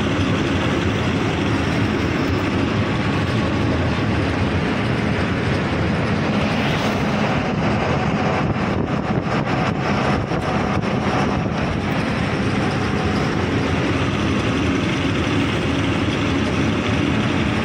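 Heavy tipper truck's diesel engine running steadily under way, with road and tyre noise, heard from inside the cab.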